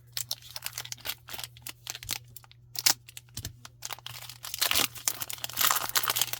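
Foil trading-card booster pack wrapper crinkling and crackling as it is handled and torn open, the crackles growing denser in the last couple of seconds.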